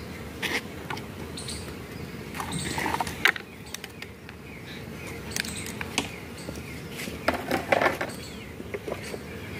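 Scattered knocks and clatter of wooden beehive boxes, covers and frames being handled, over steady low background noise. The loudest knock comes about three seconds in, and a cluster follows near eight seconds.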